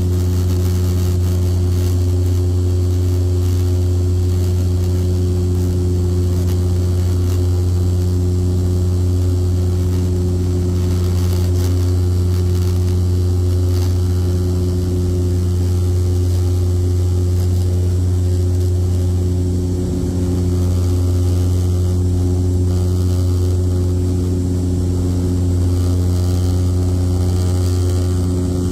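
Steady low propeller drone heard inside the cabin of a De Havilland Dash 8-400 turboprop climbing after takeoff, a deep hum with higher overtones from its six-bladed propellers and Pratt & Whitney PW150A engines.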